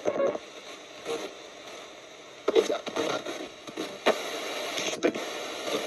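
Spirit-box radio sweeping through stations: a steady hiss of static broken by brief snatches of broadcast sound, each cut off a fraction of a second later.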